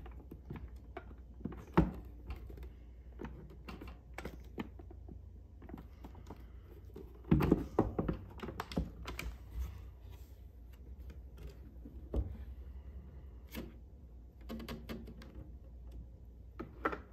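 Scattered clicks, taps and knocks from hands working a StopBox push-button handgun lockbox whose lid won't fully latch over the pistol inside. A cluster of louder clacks comes about seven to nine seconds in, as the box is worked open.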